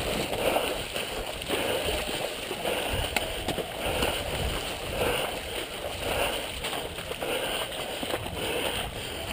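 Footsteps wading and sloshing through shallow swamp water, a step about every second.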